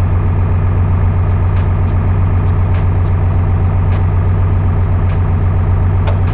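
LMTV truck's six-cylinder diesel engine idling steadily, with faint light ticks over it and a short sharp noise near the end.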